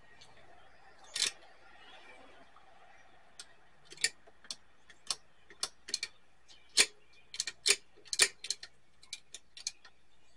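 Push-button power switch of a Quasar VR-1000 VCR being pressed over and over: one sharp click about a second in, then a fast, irregular run of clicks, some in quick pairs, from about three and a half seconds in. The switch is not latching down, with something inside taken to be sticking.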